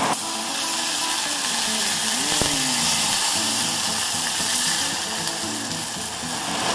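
Balsamic vinegar poured into a hot saucepan of oil and garlic, sizzling and bubbling with a steady hiss. A single sharp click sounds about two and a half seconds in.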